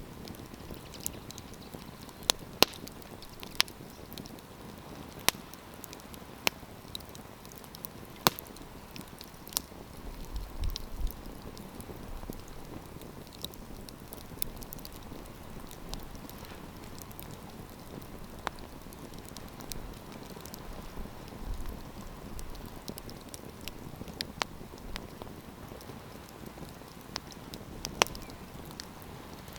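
Campfire wood burning with a steady soft hiss and irregular sharp crackles and pops, several close together in the first third and a loud one near the end.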